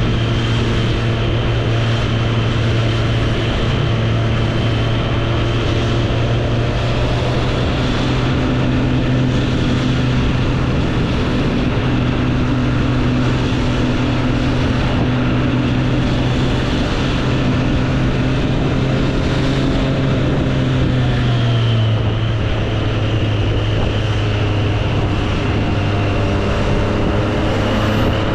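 2024 Triumph Street Triple 765 RS's inline three-cylinder engine running at steady revs, its pitch dropping slightly a little past two-thirds of the way through.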